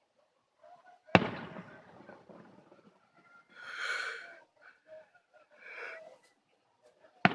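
Fireworks going off: a sharp bang about a second in with a rumbling tail, two whistles in the middle, and another bang at the very end.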